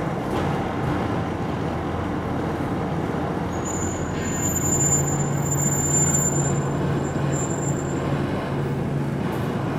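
Roller brake tester running with a car's front wheels on its rollers during a front-axle brake test: a steady rumble of the motor-driven rollers and tyres. About four seconds in, a high whine and a low hum set in and hold steady.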